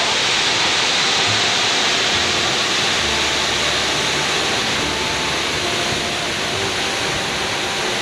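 Waterfall pouring down a rock face into its plunge pool: a steady rushing hiss of falling water. The fall is running light, with low flow for want of rain.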